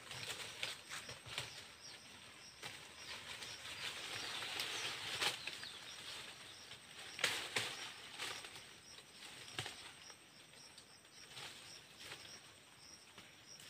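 Dry leaf litter and twigs rustling and crackling, with scattered sharp clicks and snaps.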